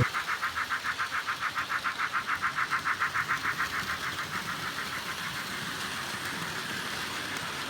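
Battery-powered toy train running along its track, with a fast, even rhythmic clatter that fades after about four seconds into a fainter steady running noise.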